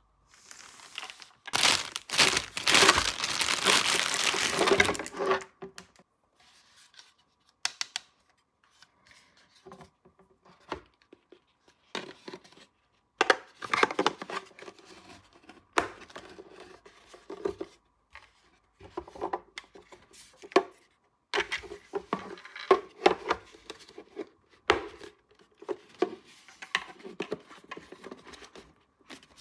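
Toy packaging crinkling and tearing loudly for about four seconds, then intermittent rustles and small sharp clicks as the pieces are handled.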